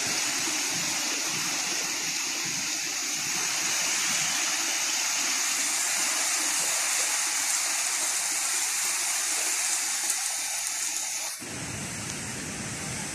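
Heavy rain pouring down on trees and foliage, a dense steady hiss. About eleven seconds in it cuts abruptly to a quieter, deeper rain sound.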